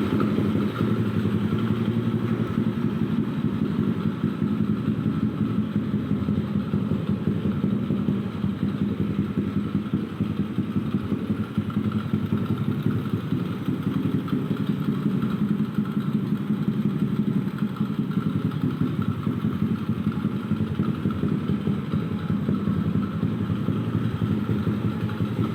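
Honda Karisma 125 cc single-cylinder four-stroke motorcycle engine idling steadily.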